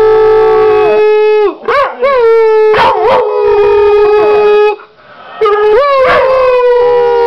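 Pit bull–foxhound mix dog howling in long held notes, each opening with a quick upward slide in pitch. The howl breaks briefly about a second and a half in and pauses for about half a second near five seconds in before starting again.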